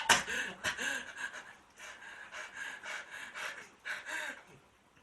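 A man repeatedly breathing in sharply and making short strained, breathy sounds, with his nose irritated by pepper and wasabi, trying to bring on a sneeze that won't come.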